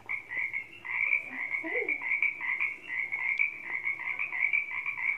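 Frog croaking in a fast, continuous pulsing trill.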